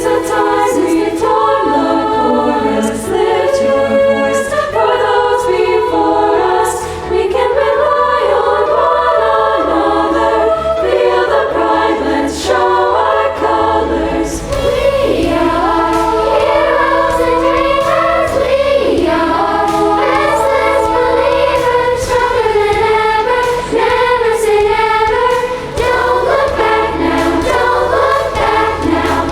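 Girls' choir singing a song in parts, with a steady low accompaniment beneath the voices.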